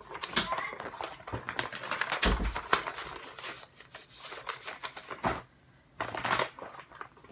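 Rustling and clicking of objects being handled and rummaged through on a desk, with a dull thump a couple of seconds in.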